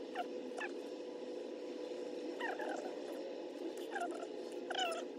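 Short, high squeaky animal calls, each falling in pitch, come about six times over a steady low hum.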